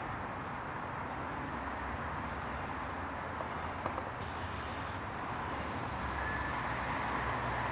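Steady outdoor background rumble and hiss, with a single short click about four seconds in.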